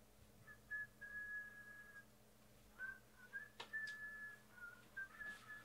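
A person whistling a tune faintly, in held notes that step up and down in pitch. Two sharp clicks come about three and a half seconds in.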